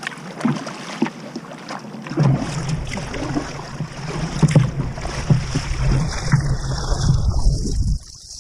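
Wind buffeting the microphone over water splashing against a kayak's hull. The low wind rumble grows loud about two seconds in and cuts off suddenly near the end.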